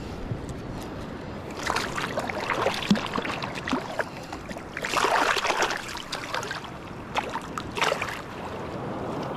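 Water splashing and sloshing in several crackly surges over a steady rush of waves.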